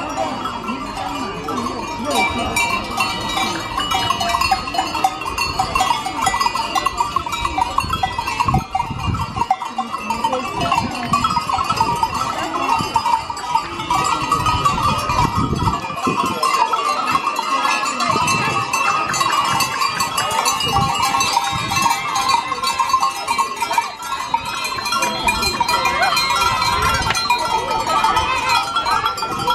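A herd of Valais Blackneck goats passing at close range, the bells on their collars jangling continuously, with the chatter of the surrounding crowd.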